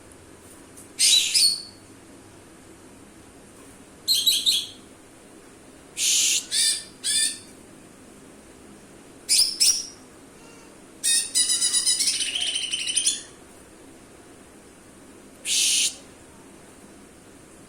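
Cucak ijo (green leafbird) singing in separate short, loud, high-pitched phrases every few seconds, with one longer run of rapid repeated notes about two-thirds of the way through.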